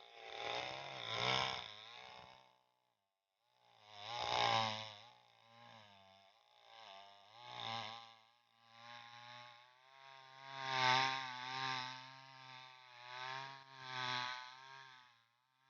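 Green Garden 22-inch chainsaw engine running, its throttle blipped again and again so the pitch rises and falls back between revs. The sound drops out completely for about a second near the start.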